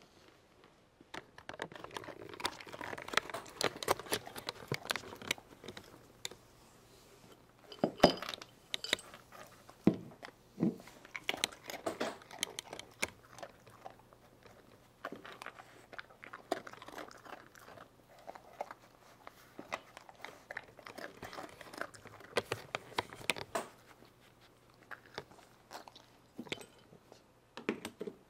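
Border Collie crunching and chewing hard dog treats: irregular crisp crunches that go on throughout, starting about a second in.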